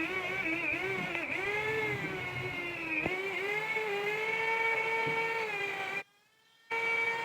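High-speed electric power tool motor whining steadily, its pitch dipping and wavering as it is pressed into the metal under load. It cuts off about six seconds in and starts again shortly before the end.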